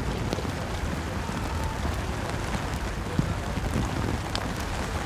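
Steady rain and wind on the microphone: a constant rumbling hiss with scattered sharp ticks of drops striking.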